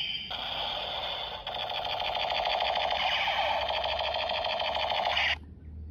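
Toy cowboy revolver's electronic sound effect playing from its small speaker: a rapidly pulsing, warbling electronic tone that cuts off suddenly about five seconds in.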